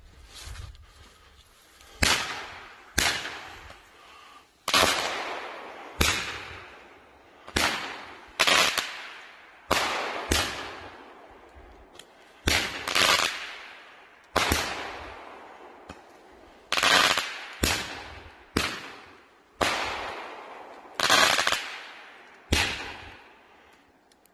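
Two World Class 'Beyond The Glory' five-shot roman candles firing, starting about two seconds in: a long run of sharp bangs roughly a second apart, each with an echoing tail.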